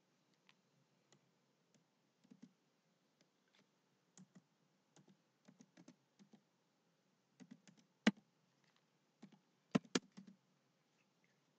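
Faint, slow and irregular keystrokes on a computer keyboard, with a few sharper, louder key clicks about eight and ten seconds in.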